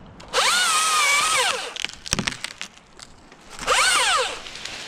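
Husqvarna T540i XP battery-powered top-handle chainsaw cutting wood. Its electric motor whines up, holds for about a second and winds down, then gives a second, shorter burst near the end. A few sharp cracks come between the two bursts.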